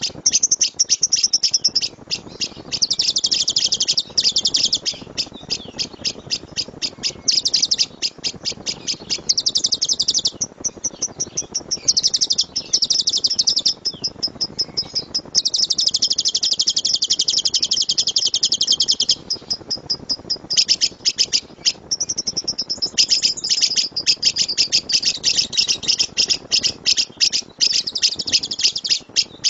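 Lovebird singing its rapid-fire 'tembakan' (shot) song: long, loud runs of high chirps at about six a second, broken by stretches of dense continuous trilling, the longest lasting a few seconds.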